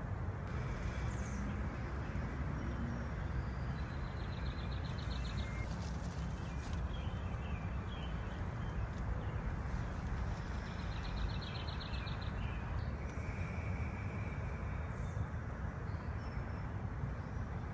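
Steady outdoor background noise heard inside a tent, with a faint high trilling call twice, about four and ten seconds in.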